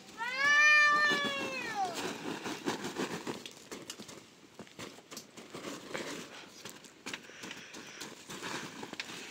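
A cat gives one long meow of nearly two seconds that falls away at the end. Then come soft rustling and light clicks as pistachios are handled in a cloth bag among the branches.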